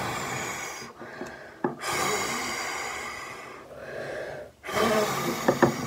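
A woman blowing hard through pursed lips, three long puffs of breath with short pauses between them. A few light clicks come near the end.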